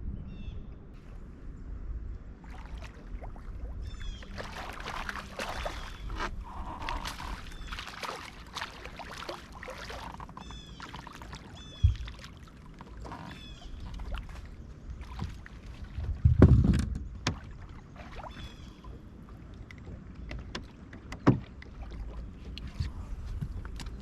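Wind rumbling on the microphone aboard a small fishing boat, with rustling, clattering and knocks as gear and the fish are handled. A heavy thump comes about sixteen seconds in, and short high chirps repeat through the first half.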